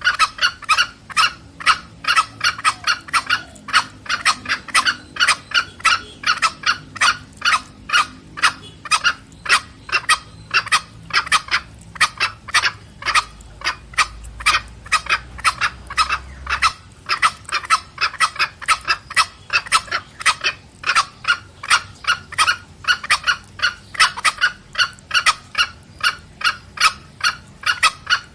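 Junglefowl cock and hen calling back and forth in the rapid 'petrek' clucking call used to lure wild junglefowl: short, sharp clucks at about three a second, going on without a break.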